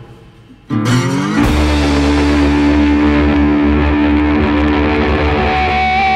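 Background rock music with guitar. It dips out briefly at the start, then comes back with a long held chord, and a higher note joins near the end.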